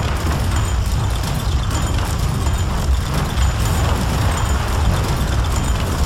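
A loud, steady deep rumbling roar: a cartoon destruction sound effect of the ground breaking up and trees being torn away by a black hole's pull, with a vehicle driving through it.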